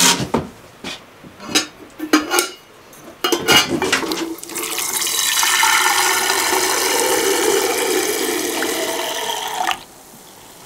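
A few knocks and clatter, then water running steadily into a container for about five seconds before cutting off abruptly.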